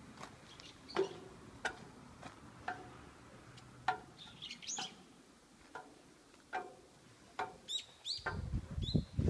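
A toddler's footsteps climbing playground stair treads: a series of light knocks about one a second, with a few short high chirps among them. Near the end a loud low rumble from the microphone starts.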